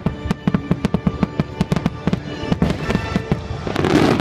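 Rapid barrage of fireworks: shells and comets bursting in quick succession, several sharp bangs a second, over the show's music. The noise swells louder near the end.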